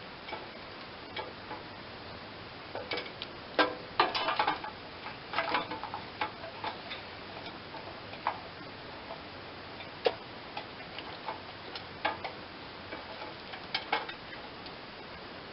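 Irregular light clicks and knocks of electrical wiring and plastic connectors being handled and pulled free, with a cluster of louder knocks about four seconds in.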